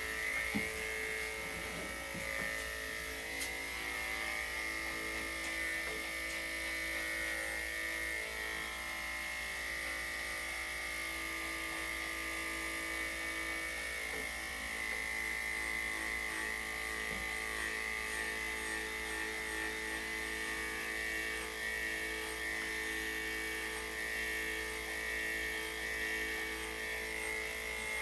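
Electric dog grooming clippers with a #5 blade running steadily as they shave a dog's coat, with a couple of brief clicks in the first few seconds.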